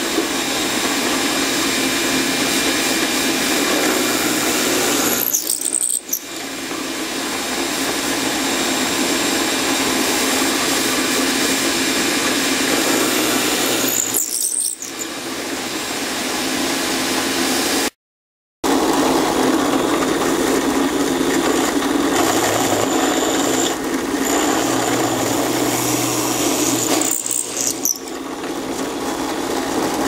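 Drill press running steadily while its bit bores a series of holes into a wooden block, with a few short dips in the noise that build back up. The sound cuts out completely for about half a second near the middle.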